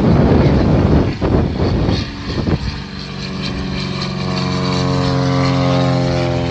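Rushing wind noise on the microphone, then, from about two and a half seconds in, a propeller airplane's piston engine droning past, its pitch sinking slightly.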